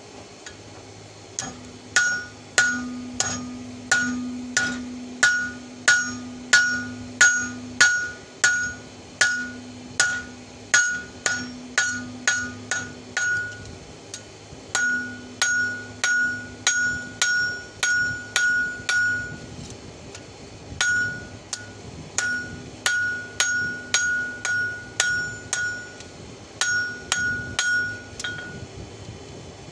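Hand hammer striking the hot open end of an old wrench on a steel anvil, drawing it out into fork tines: steady blows about two a second, each with a clear metallic ring, in runs broken by a few short pauses.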